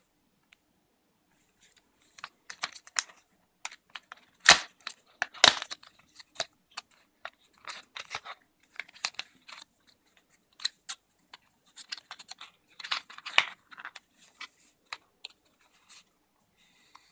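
Cardboard packaging being handled and opened: the card sleeve rustles and scrapes in irregular bursts as it is pulled apart. Two loud sharp snaps come about four and a half seconds in and again a second later.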